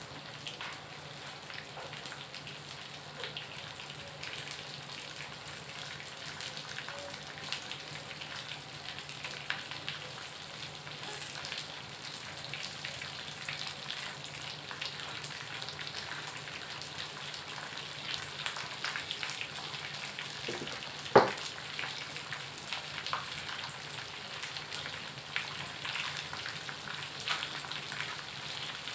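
Peanuts and sliced garlic frying in a pan, a steady sizzle dotted with small crackles and pops. One loud sharp pop comes about two-thirds of the way through.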